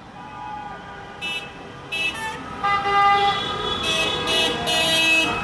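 Car horns honking in celebration from cars driving by: several horns at different pitches, long and short blasts overlapping, getting louder toward the end.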